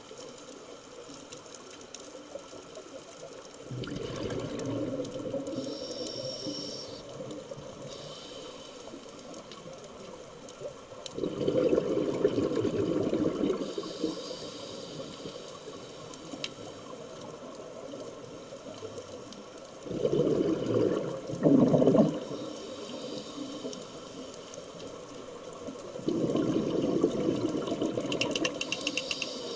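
Scuba regulator breathing heard underwater: four bursts of exhaled bubbles, each a few seconds long and about seven to nine seconds apart, over a steady water hiss.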